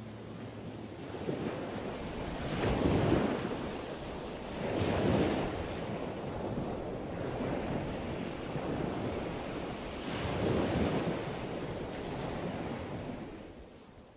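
Ocean surf: waves washing in as a steady rush, with three louder swells, the last around ten seconds in, before the sound fades out at the end.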